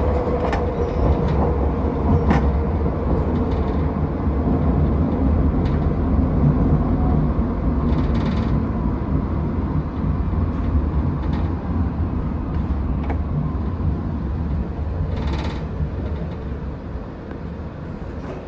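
Alstom Citadis X05 tram running on the rails: a steady low rumble with a faint whine that fades over the first few seconds and a few light clicks, growing quieter near the end.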